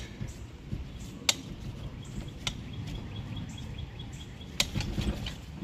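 Four sharp knocks, irregularly spaced, as the front hub and brake caliper assembly is rocked by hand. The steering knuckle is shifting on a worn lower control arm ball joint that has play in it.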